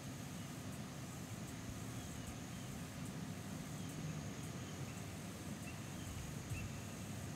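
Quiet woodland ambience: a steady low rumble under a faint, even high-pitched drone of insects, with a few faint, short bird chirps scattered through.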